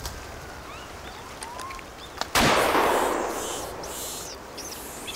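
A single shotgun blast about two seconds in, with a long echoing tail that dies away over a couple of seconds.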